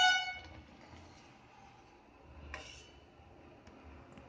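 A metal spoon clinks against a metal pan of sugar syrup, ringing briefly at the start, then a fainter knock about two and a half seconds in.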